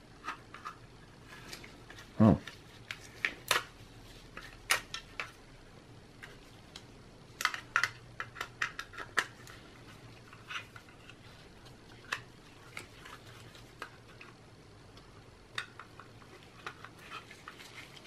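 A 2.5-inch Samsung SSD and small laptop parts being handled: scattered light clicks and taps of hard plastic and metal, with one louder knock about two seconds in and a quick run of clicks around the middle.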